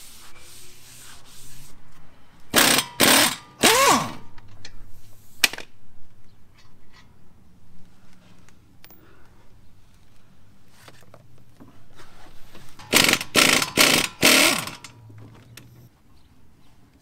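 A cloth wipes a new brake rotor for the first couple of seconds. Then a pneumatic tool on a compressor hose runs in short loud bursts at the front brake: three about two and a half seconds in, the last falling away in a dropping whine as it spins down, and another cluster of several about thirteen seconds in. Faint clicks of tools on metal come between the two clusters.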